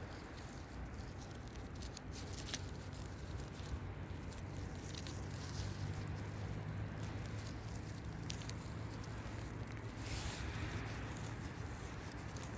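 Scattered crackles and rustles of dry forest-floor litter, over a steady low rumble of wind on the microphone. A faint low hum comes in for a few seconds in the middle.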